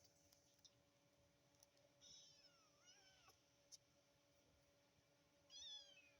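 Three-week-old kittens mewing faintly: high, thin mews about two seconds in and near three seconds, and a louder one near the end, with a few light clicks between.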